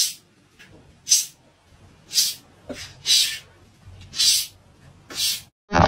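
Domestic cat hissing in short bursts, about once a second, six times.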